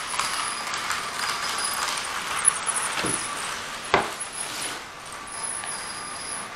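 Model train running on the layout: a steady thin motor whine with track rumble that eases off after about five seconds, plus a few sharp clicks and clinks, the loudest about four seconds in.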